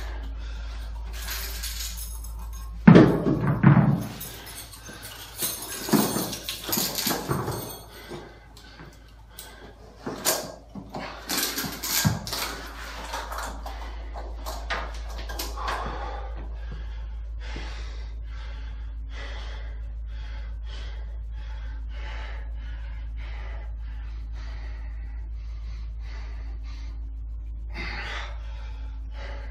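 Knocks, thumps and clatter from handling the camera and gym equipment, loudest about three seconds in. From about halfway on, heavy breathing in short strokes about once a second from a man doing dips.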